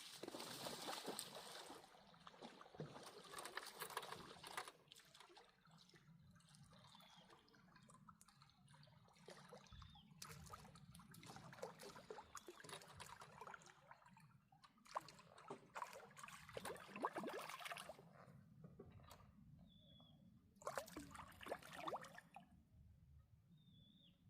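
Water splashing and sloshing in four irregular bursts, each lasting a few seconds.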